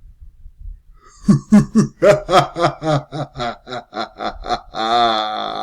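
Deep evil laugh, a sound effect: a quick run of "ha" pulses, about four a second, ending in one long drawn-out note.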